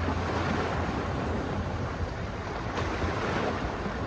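Ocean waves washing in with a steady rushing noise, with wind buffeting the microphone as a low rumble.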